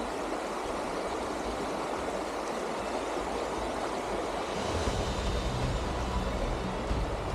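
Fast-flowing creek water rushing steadily. Low, deep music comes in about two-thirds of the way through.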